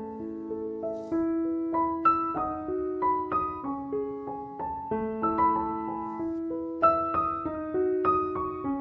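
Background piano music: a gentle melody of single notes, about two or three a second, over lower held notes.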